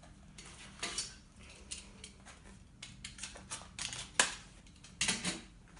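Packaging and papers being handled: rustling with a run of small clicks and knocks, the sharpest about four seconds in and a few more just after five seconds.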